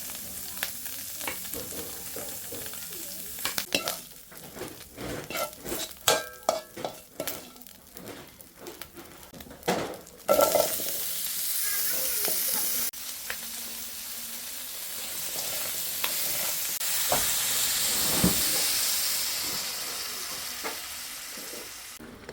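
Food frying in a hot pan: a utensil knocks and scrapes against the pan for the first half, then about ten seconds in a loud sizzle starts as food hits the hot oil, and it keeps sizzling.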